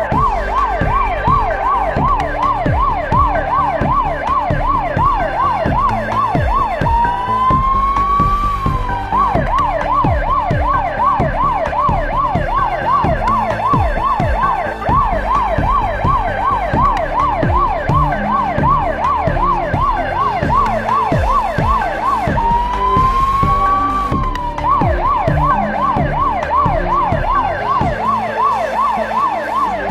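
Police car siren on a fast yelp that warbles up and down about three times a second, switching twice to a slow wail rise and fall before the yelp resumes.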